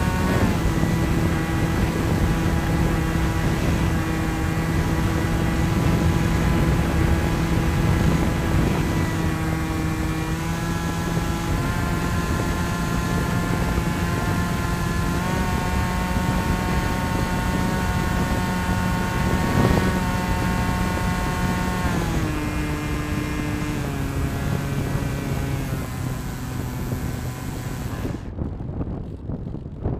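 Electric brushless motor and pusher propeller of a Bixler RC plane whining in flight, heard from the onboard camera, its pitch stepping up and down several times with the throttle. Rushing air underneath; the motor note fades out near the end as the throttle is cut and the plane comes in low.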